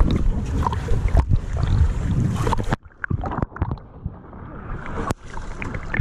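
Sea water sloshing and splashing around an action camera held at the waterline by a swimmer. About three seconds in the sound drops suddenly and turns muffled, with scattered small clicks and splashes, until loud splashing returns near the end.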